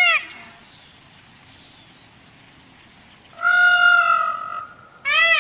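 A bird calling loudly in short arched notes, about two a second. These stop after the start, then there is a longer call about three and a half seconds in, and they resume near the end. In the quiet gap, small birds chirp faintly and high.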